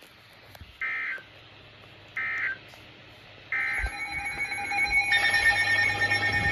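Three short, identical buzzy Emergency Alert System (SAME) data bursts, the end-of-message code that closes a broadcast warning. They are followed, about three and a half seconds in, by a louder steady electronic alert tone with several pitches, which thickens a second later.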